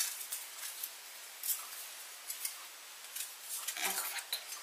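Light clicks and scrapes of a metal heart-shaped ring mould being handled in the hands.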